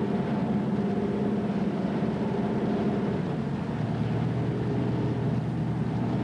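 Twin V-16 Detroit Diesel two-stroke engines of an old torpedo retriever running underway, a steady low drone whose note drops a little about halfway through.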